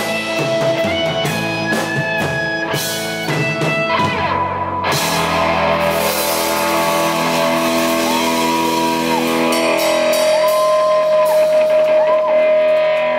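Live rock band playing with two electric guitars, electric bass and drum kit. About five seconds in a crash lets the band ring out on a held chord, with a high line bending up and down over it.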